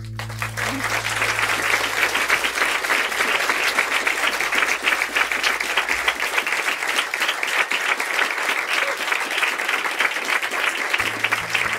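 Audience applauding and clapping at the end of a song, with the band's last chord dying away under it during the first couple of seconds.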